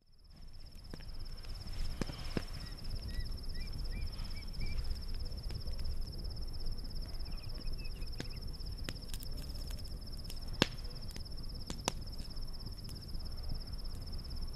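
Wood campfire crackling, with a few sharp pops scattered through, over a steady high trill of crickets and a low rumble. It fades in at the start.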